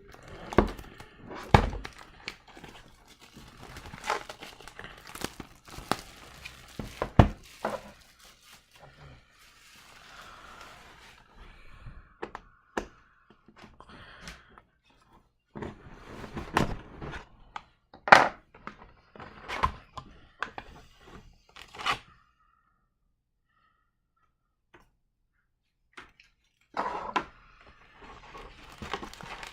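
Cardboard trading card hobby box being unwrapped and opened by hand: irregular knocks and taps of cardboard, with plastic wrap crinkling and tearing. A silent gap of about five seconds comes near the end, then the crinkling starts again.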